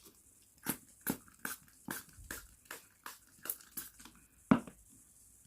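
Trigger spray bottle being squeezed over and over, short spritzes of rice water onto hair at about two or three a second, with one louder knock about four and a half seconds in.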